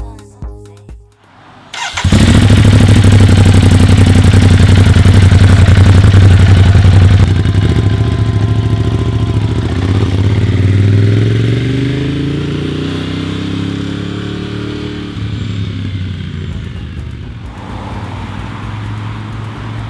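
2015 Ducati Monster 821's L-twin engine starting about two seconds in and running loudly and steadily, then the engine note climbs while the sound grows quieter, settling to a lower steady level near the end.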